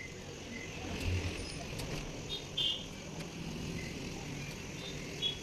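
Quiet background ambience: a steady low rumble with a few short, high chirps.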